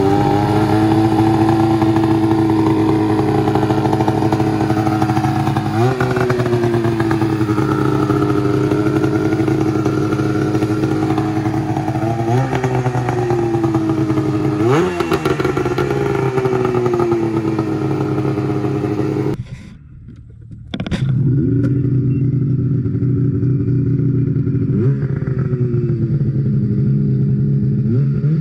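Ski-Doo 600 RS race snowmobile's two-stroke engine, just started and idling, with a few sharp throttle blips that each rise and fall quickly in pitch.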